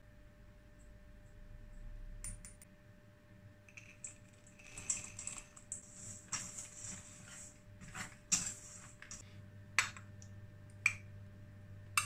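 Small wire whisk stirring flour and raisins in a stainless steel bowl: a dry, scratchy scraping with sharp metallic clicks and clinks as the wires hit the bowl.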